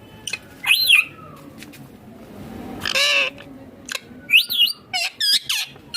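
Indian ringneck parakeets calling: a string of short, high squawks at irregular intervals, with one longer call about three seconds in.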